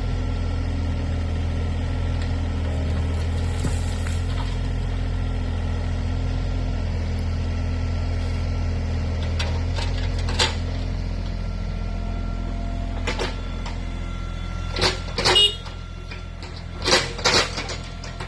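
Excavator's diesel engine running steadily, dropping to a lower level a little past halfway. Several sharp metallic knocks come in the second half, some in quick pairs.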